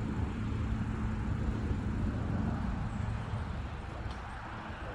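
Steady, low outdoor rumbling noise, easing slightly about three seconds in.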